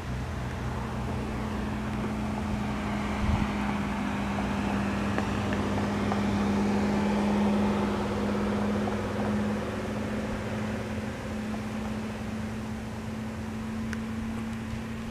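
Light single-engine piston airplane engine and propeller running, a steady drone that grows louder toward the middle and eases off near the end. A brief bump about three seconds in.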